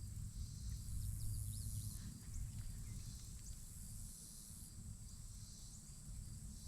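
Outdoor ambience: a high, steady insect chorus that swells and fades in stretches, a few short bird chirps about one to two seconds in, and a low rumble underneath.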